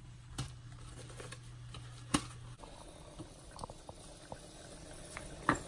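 A few sharp clicks and knocks of cookware, the loudest about two seconds in, and a low hum that stops halfway through; then the faint, even bubbling patter of mackerel and vegetables simmering under a glass lid in a frying pan.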